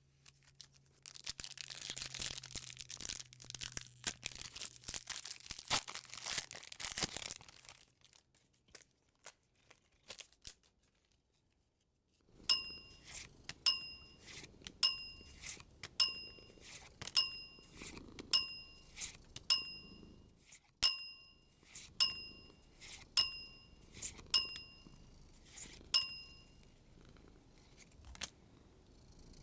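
A foil booster-pack wrapper is torn open and crinkled, followed by a few light clicks of handling. Then a bright ding sounds about fifteen times, roughly once a second, over the soft sliding of trading cards in the hand.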